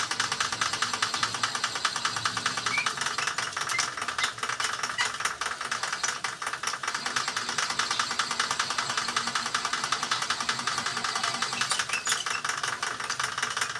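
Metal lathe running steadily with a fast, even rattle while the test tank is machined.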